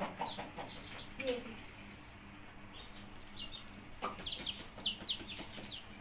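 Young chicks peeping in short, high notes, coming thick and fast from about three seconds in. A lower call comes about a second in, and there are a few light knocks.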